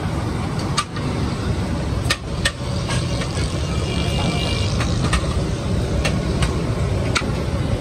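A steady low rumble with a string of sharp knocks at uneven intervals, and a brief high two-note tone about four seconds in.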